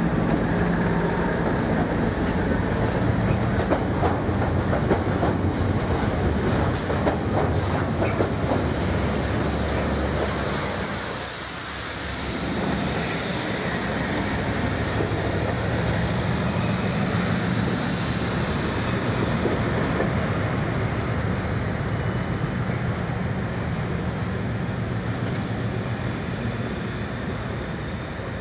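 A freight train top-and-tailed by two Class 56 diesel locomotives passing close by, their Ruston V16 diesel engines running with wheels clattering over the rails. The engine sound dips briefly about twelve seconds in, then rises again as the second locomotive goes past, with a short high wheel squeal a few seconds later before the train draws away.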